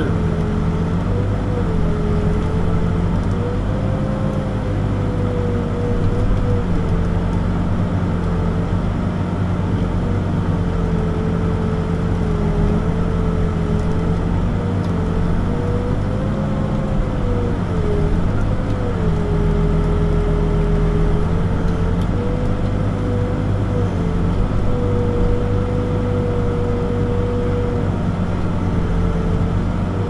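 Backhoe's diesel engine running steadily while digging, its pitch sagging and recovering a little every few seconds as it takes and sheds load.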